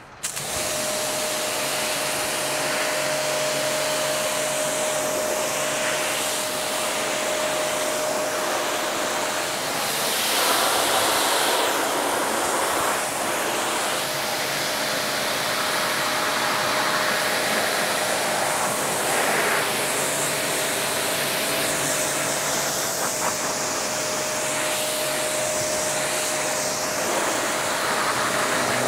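Pressure washer running, its lance spraying a jet of water onto a car's foam-covered panels to rinse off the pre-wash, top down. A steady hiss of spray with a constant whine beneath it starts abruptly right at the beginning, and the hiss rises and falls as the jet moves over the panels.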